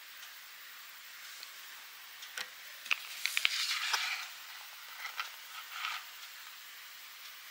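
Face sheet mask packet being handled, crinkling and clicking in a cluster of sharp bursts about two to four seconds in, then a few softer crinkles around five to six seconds.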